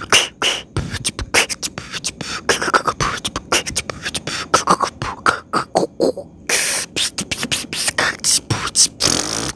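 A person beatboxing: a fast run of mouth-made kick, snare and click sounds, with two longer hissing cymbal-like sounds, one about two-thirds of the way in and one near the end.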